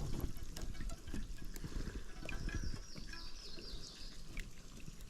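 Creek water trickling and lapping faintly around a kayak, with a few small clicks and knocks scattered through it.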